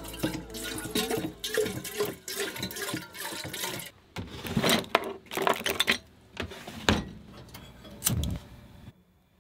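Water running from a galley tap into a kettle, followed by knocks and clicks of a drawer being opened and of a gas stove burner being lit near the end.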